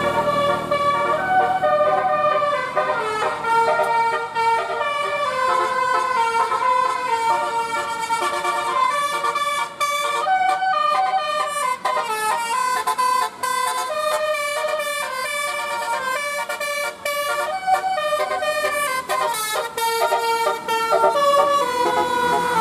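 Indonesian bus telolet horn, a set of air horns playing a tune: a long run of changing notes, often several tones at once, with quicker notes in the middle.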